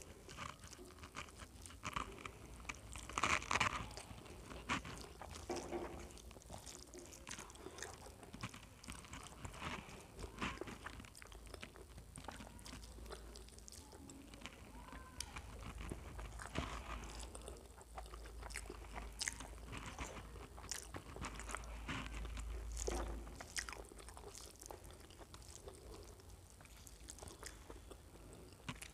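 Eating by hand: fingers mixing and squishing rice with curry on a steel plate, with chewing and small wet mouth sounds in between. Scattered soft clicks and smacks throughout, loudest about three seconds in.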